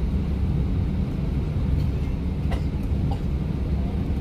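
Steady low cabin rumble of an Airbus A320-200 rolling along the ground after landing, heard from a window seat over the wing: engine noise mixed with the rumble of the landing gear on the tarmac. A faint click comes about two and a half seconds in.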